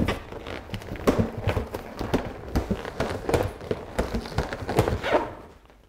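Inflated 8-inch latex balloons rubbing, squeaking and bumping against each other as a four-balloon cluster is twisted and pressed onto a balloon column, in irregular knocks and squeaks that die away near the end.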